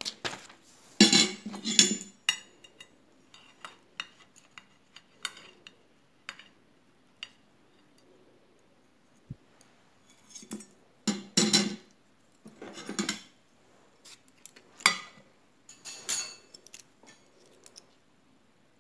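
Metal cake server and fork clinking and scraping against a glass cake platter and a ceramic plate as a slice of cheesecake is cut out and served. Scattered light clinks, with louder clusters about a second in and again from just past the middle.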